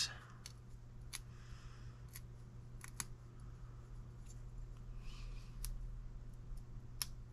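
Faint scattered clicks and light rubbing from a rubber seal being peeled by hand off the glass lens of an oil pressure gauge; the rubber is stuck fast to the glass.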